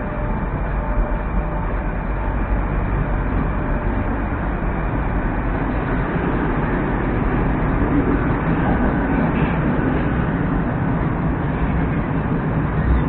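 Moscow Metro Moskva-2019 train running between stations, heard inside the passenger car: a steady, continuous rumble and rolling noise.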